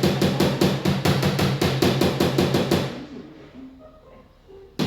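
Rapid, even tapping of a small dent-repair hammer on a car door's sheet metal, about eight light blows a second, knocking down a crease while a hook holds the panel from behind. The tapping stops about three seconds in and starts again near the end.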